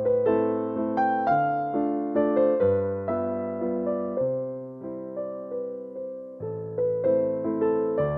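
Background music: a gentle piano melody over bass notes, each note struck and fading.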